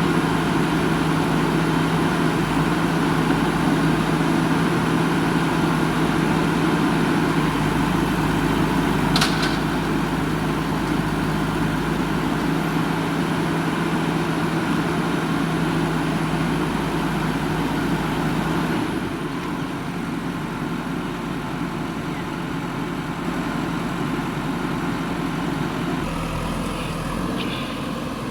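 Heavy diesel machinery engine running steadily, with one sharp click about nine seconds in. About two-thirds of the way through the engine drops to a lower, quieter note.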